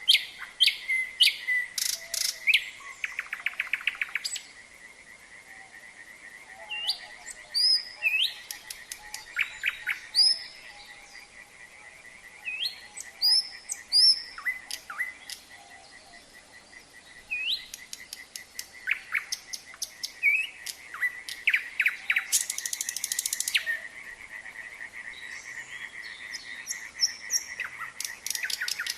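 Nightingale singing in separate phrases of rapid clicking notes, whistles and rising notes, with pauses of a few seconds between phrases. A steady trilling chorus of frogs runs underneath.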